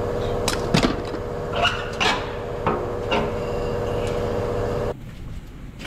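Sharp metallic clanks and knocks as a truck's skid plate is pulled free and handled, several in the first three seconds or so. A steady machine hum underneath stops suddenly about five seconds in.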